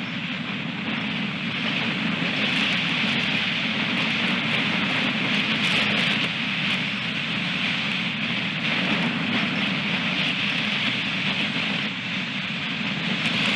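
Strong wind rushing over an outdoor nest-camera microphone, a steady noise that swells and eases in gusts.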